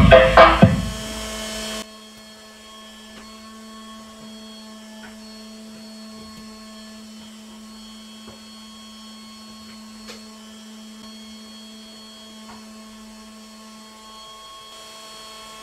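Music playing through a home-built four-channel transistor power amplifier cuts off about a second in. What follows is a faint, steady hum with a few fixed higher tones and scattered faint clicks as the amplifier idles with no signal.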